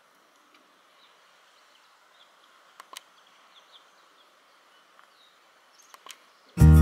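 Faint outdoor ambience with faint, distant short bird chirps and a few sharp clicks. Loud music starts abruptly at the very end.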